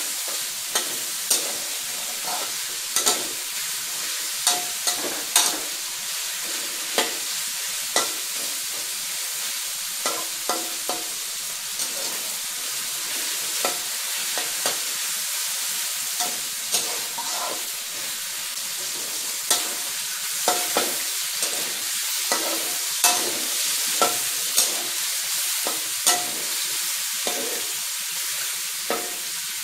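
Cubes of skinless pork belly sizzling in oil in a wok, with a metal spatula scraping and knocking against the wok about once a second as they are stirred. The fat is rendering out of the pork into the pan.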